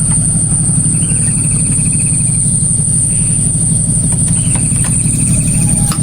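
A small engine running steadily with a low, even throb. Over it a constant high-pitched insect whine, and an insect trill twice, about a second in and again just after four seconds.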